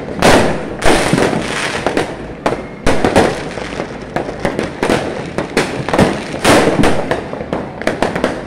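New Year fireworks and firecrackers going off without pause: a dense, irregular run of sharp bangs and crackles overlapping one another, with several louder bangs standing out.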